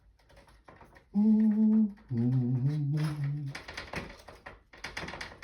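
A man hums two held notes, the first about a second in and the second just after, then light clicking and rustling follow.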